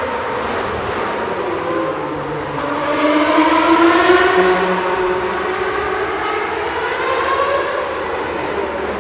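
Formula One cars' 2.4-litre V8 engines running at high revs past the track, their high whine gliding in pitch. It grows loudest about three to five seconds in as a car goes by, then eases off.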